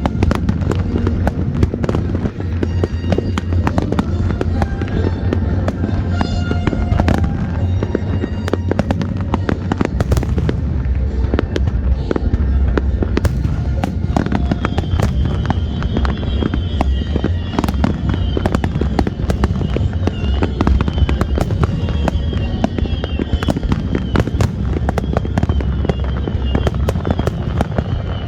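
A dense, unbroken barrage of firework bursts and crackles in the finale of a pyromusical display, with the show's music playing underneath. The music is clearest in the first few seconds, and a high wavering tone joins the bangs about halfway through.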